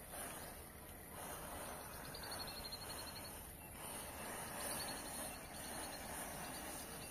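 Faint hissing and fizzing of a row of matchsticks catching fire one after another in a chain, rising and falling as each head flares. A high, rapid trill sounds twice in the background.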